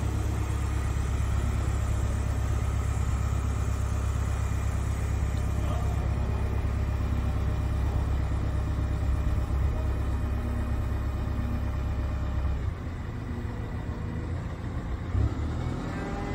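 Sennebogen 340G telehandler's engine running with a steady low rumble as the machine drives; the engine note drops and eases off about three-quarters of the way through.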